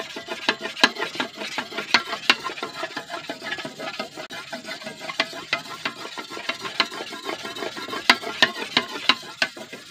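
A fine whetstone scraped back and forth along the curved steel blade of an egrek (oil-palm harvesting sickle), held flat to the edge: quick, uneven scraping strokes with sharp clicks throughout.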